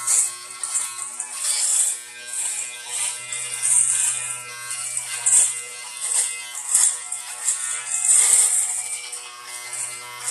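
Electric shaver running with a steady buzz, with a high hiss of cutting stubble that swells and fades about once a second as it is passed over the skin.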